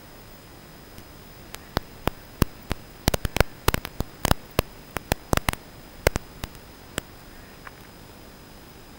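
A run of about twenty sharp, irregular clicks over a steady hiss with a thin high whine. The clicks bunch up in the middle and stop about two seconds before the end.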